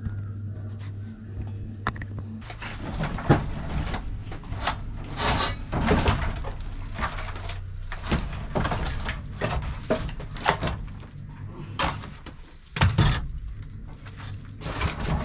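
Dry firewood logs knocking and clattering against one another as they are pulled from a woodpile: an irregular run of wooden knocks with a few louder clunks. A low steady hum is heard in the first couple of seconds, before the knocking starts.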